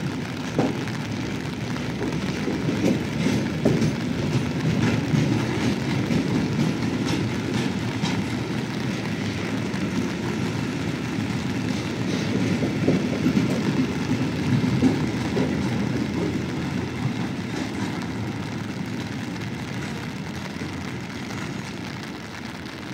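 Freight train of flat wagons loaded with concrete railway sleepers rolling past: a steady rumble of wheels on rail with scattered clattering knocks, fading over the last several seconds as the end of the train moves away.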